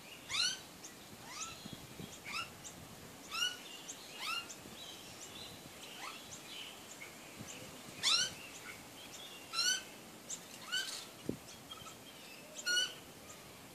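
Australian magpies calling: a series of short rising squawks, one every second or two, the loudest about eight seconds in, with faint high chirps between them.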